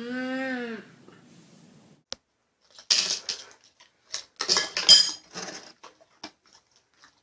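A short call that rises and falls in pitch, then several bursts of clinking and clattering of hard objects, like dishes or cutlery being knocked about.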